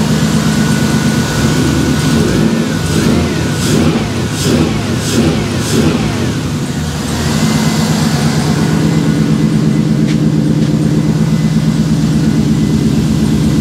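A 1957 Chevrolet's engine running through headers and a 3-inch exhaust. It is revved a few times, then settles to a steady idle. A slight tick comes and goes, which the owner puts down to a leaking header collector, and a pulley makes a bit of noise.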